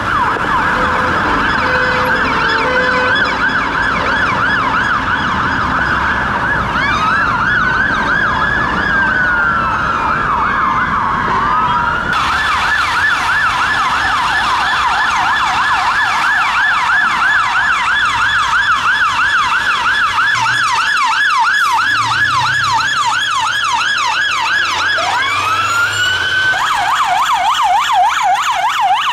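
Fire and rescue vehicles' electronic sirens sounding a rapid yelp, a fast even up-and-down warble. Midway a second siren sweeps slowly up and back down in a wail. Near the end a rising wail sweep cuts in, then the yelp continues a little lower in pitch.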